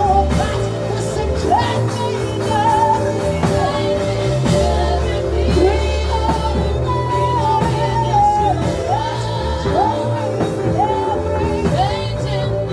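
Worship band music with singing: long held bass notes under a high melody that slides up into sustained notes.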